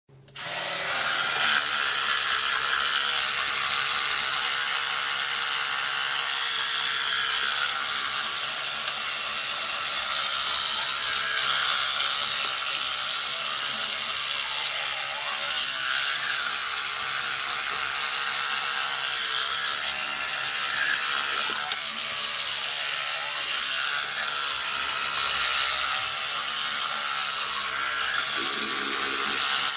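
Electric toothbrush switched on about half a second in, then running with a steady high buzz whose tone shifts slightly over time.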